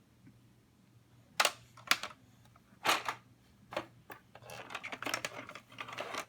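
Plastic toy tools knocking and clacking as a child handles them: a few separate sharp clacks, then a busier patch of rattling and clatter near the end.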